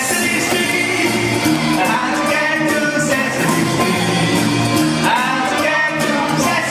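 Steel band playing: steel pans sounding a melody and chords over drums keeping a steady beat.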